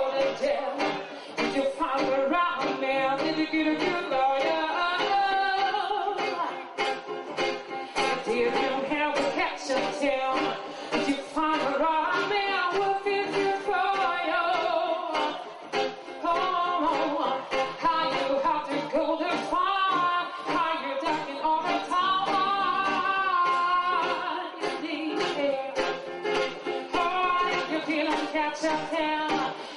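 Live song: a woman singing into a microphone, with guitar accompaniment.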